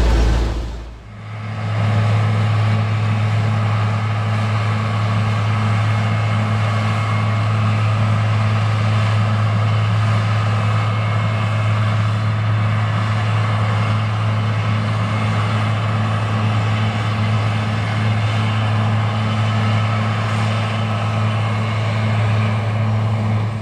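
New Holland TR99 combine at work harvesting soybeans: its six-cylinder turbo engine and threshing machinery running at a steady working pace, a constant low drone over a broad mechanical hum. The sound dips briefly about a second in, then holds steady.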